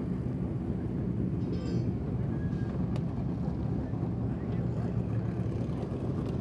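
Steady low rumble of racetrack paddock background noise, with a few faint light clicks.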